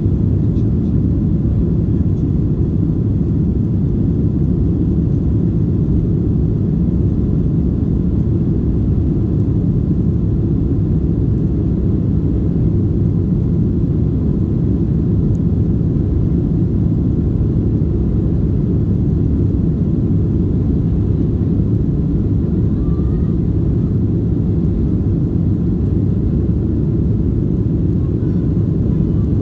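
Steady cabin noise inside a Boeing 737-600 in flight: an even low rumble of the engines and the airflow, unchanging throughout.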